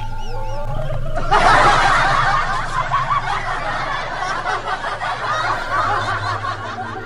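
Kuntilanak ghost laughter: a loud, high-pitched, cackling female laugh. It starts about a second in and keeps going almost to the end.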